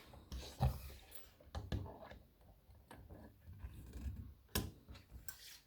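Scattered small metallic clicks and taps with soft knocks, from a lock cylinder and thin picking tools being handled; two sharper clicks come near the end.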